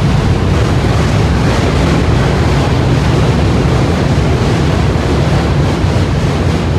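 Subway train running past at speed: a loud, steady rumble of wheels on rail.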